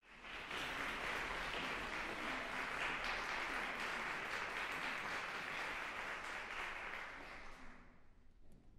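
Audience applauding: steady clapping that fades out near the end.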